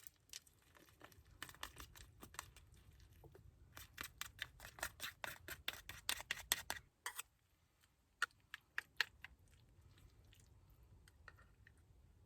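A quick, irregular run of sharp clicks and crackles. It is densest in the middle, stops abruptly about seven seconds in, and is followed by a few single clicks.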